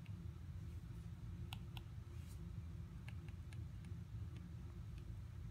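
Faint, scattered light clicks, several of them spread irregularly, over a steady low hum.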